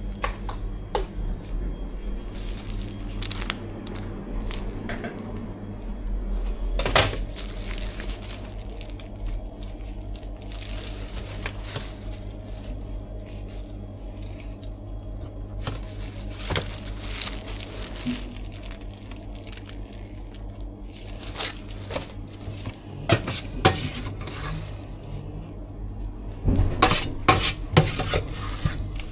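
Scattered clinks and knocks of kitchen utensils and dishes over a steady low hum, with a busier clatter near the end.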